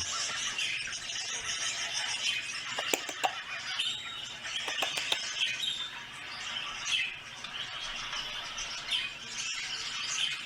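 Birds chirping and squawking in a dense, steady chatter, with a few sharp clicks about three and five seconds in.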